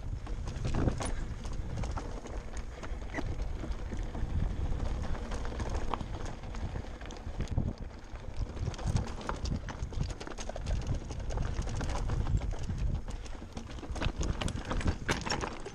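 Mountain bike riding down a loose, rocky trail: tyres crunching over stones and the bike rattling, with many irregular knocks and clicks over a steady low rumble.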